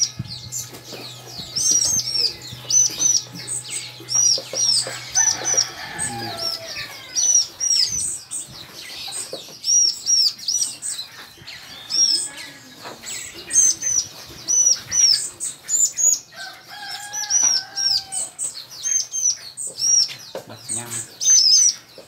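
Cucak jenggot (bulbul) chick making high, repeated begging chirps in quick runs while it is hand-fed in its cage.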